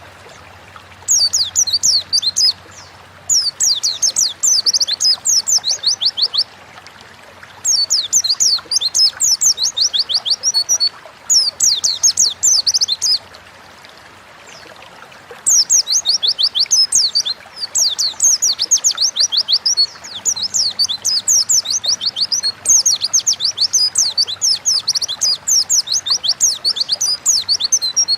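White-eye (pleci) song: fast bouts of rapid, high-pitched, falling chirps lasting a few seconds each, separated by short pauses.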